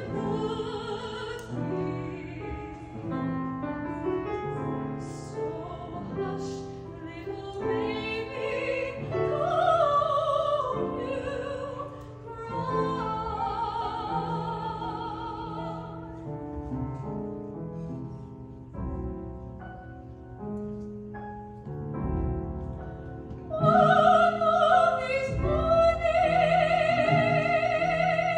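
A young woman singing solo in a classical, operatic style, her voice wavering with vibrato, over piano accompaniment. The voice drops out for a few seconds midway while the accompaniment carries on, then comes back at its loudest near the end.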